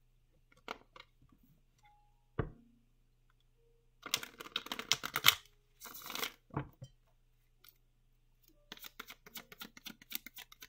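Tarot cards being shuffled by hand in short bursts of rapid clicking, the cards slapping and flicking against each other. A single sharp tap comes about two and a half seconds in.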